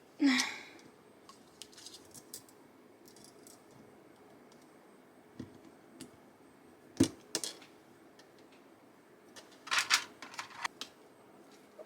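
Sparse small plastic clicks and taps of keyboard stabilizer parts being handled and fitted onto a keyboard PCB, with a sharper click about seven seconds in and a quick cluster of clicks about ten seconds in.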